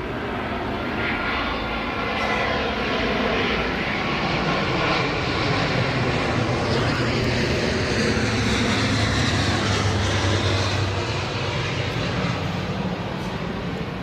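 Airbus A350-941 jet airliner's Rolls-Royce Trent XWB engines passing on approach: the jet noise grows louder, peaks about nine to ten seconds in, then eases off, with a whine that slides down in pitch as it goes by.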